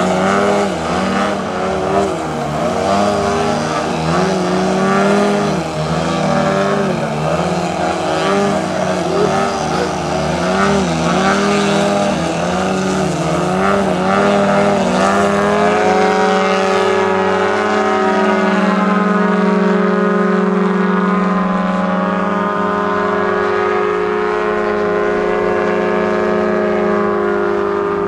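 Engines of two RC aerobatic model airplanes running, their pitch rising and falling over and over as they hold a nose-up hover on the throttle, then settling into a steady note about sixteen seconds in as both climb away.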